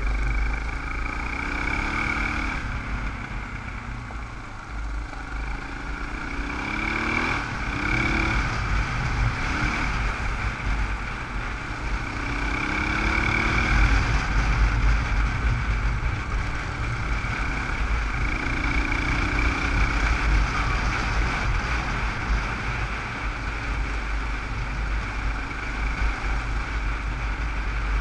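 Dual-sport motorcycle engine running under way, its pitch climbing in short runs several times as the rider accelerates and shifts, under heavy wind rumble on a helmet-mounted camera microphone.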